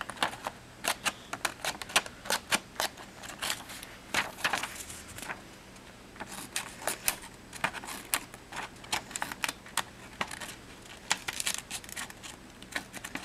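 Small scissors of a Gerber MP400 multi-tool cutting paper: an irregular run of quick, sharp snips and clicks, with brief lulls around the middle.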